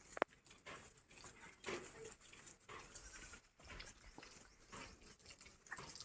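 Faint short calls of farm animals among scattered rustling and knocking, with one sharp click just after the start.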